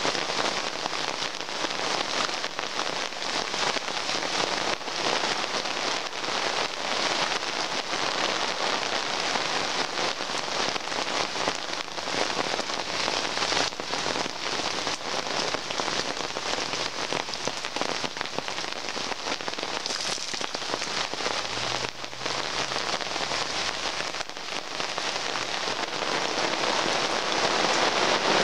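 Heavy rain falling on gravel and on the tent fly overhead, with many close drops striking the fabric. The rain grows louder near the end.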